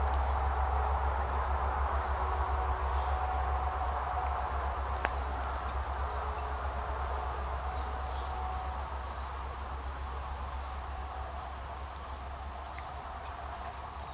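Insects chirping in the woods: a steady, high, evenly pulsing trill. Beneath it runs a strong low rumble on the microphone that slowly fades.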